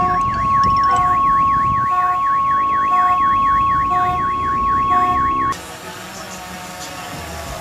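Electronic siren warbling fast up and down over a steady high tone, with a short beep about once a second, cutting off suddenly about five and a half seconds in.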